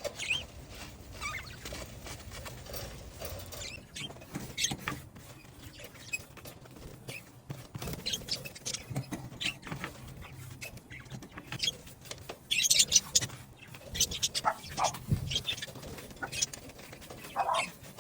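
Bird cage being cleaned: irregular scraping, clicking and rustling of the cage and its parts being handled and scrubbed, with a louder flurry of scraping about two-thirds of the way through.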